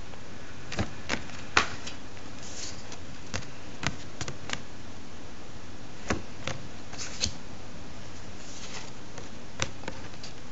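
Stiff art cards being handled and swapped by hand: scattered light clicks and taps, with a couple of brief rustles of card sliding over card, over a steady background hiss.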